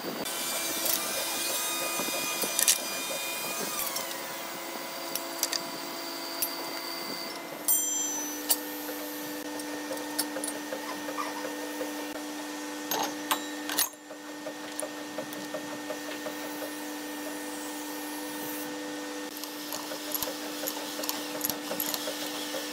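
Steady hum of workshop machinery running, with scattered clinks and knocks as wood and metal tooling are handled.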